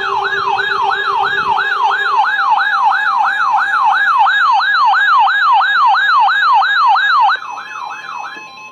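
Electronic siren in a fast yelp, its pitch sweeping up and down about three times a second. A steady lower tone sounds under it for the first two seconds, and the siren drops in level about three-quarters of the way through before cutting off.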